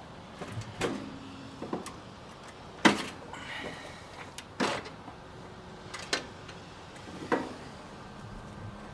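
Sheet-metal jacket panels of a central air conditioner condenser being taken off and handled: about six sharp metallic knocks and clanks a second or so apart, the loudest about three seconds in.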